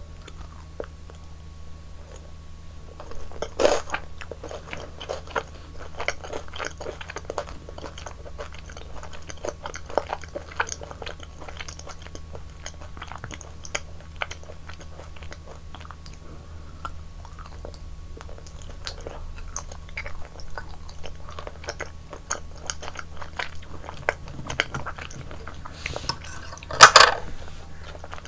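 Close-miked eating of yogurt ice cream: a loud bite about four seconds in, then steady wet crunching and chewing, and another, louder bite near the end.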